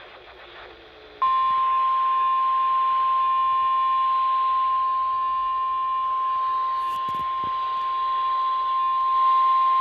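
NOAA Weather Radio's 1050 Hz warning alarm tone: a single steady beep that starts about a second in and holds for roughly nine seconds, signalling that a new warning, here a severe thunderstorm warning, is about to be read.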